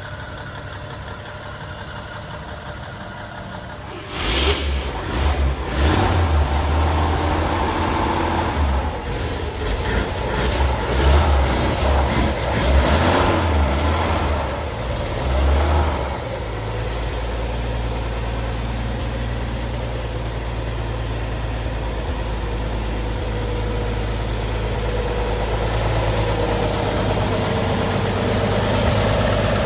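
1949 Chevrolet 3100 pickup's 216 inline-six engine running. It runs steadily at first; from about four seconds in it is much louder and surges unevenly, as with repeated revs, until about sixteen seconds in. After that it settles into a steady idle.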